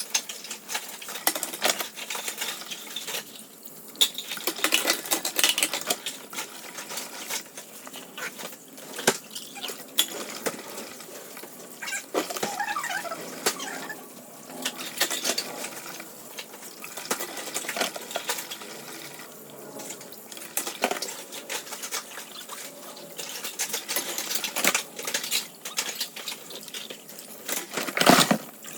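Dishes being washed at a kitchen sink: water running and splashing, with frequent clinks and knocks of dishes and utensils, the loudest knock near the end.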